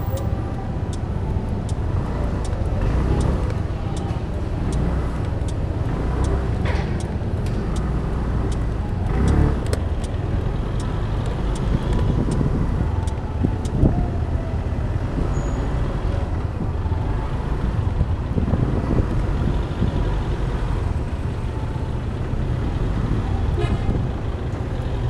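City street traffic: passing cars give a steady engine and tyre rumble, with a short horn tone near the start.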